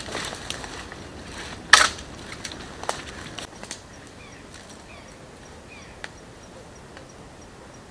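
Dry dead branches cracking and snapping as they are broken and handled by hand, with the loudest sharp cracks at the start and about two seconds in, then a few smaller clicks. Faint bird chirps and a steady high ticking, about four a second, sit in the background.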